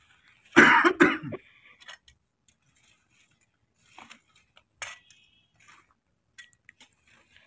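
Two loud coughs close together about half a second in. After that, scattered light clicks and metallic clinks come from a wire grill basket being handled over a coal fire, with one brief ringing clink near the middle.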